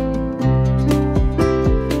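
Background music: plucked string notes, guitar-like, over a steady beat.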